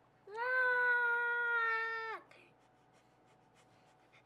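A toddler's single long, high-pitched squeal of about two seconds, held on one pitch and dropping away at the end.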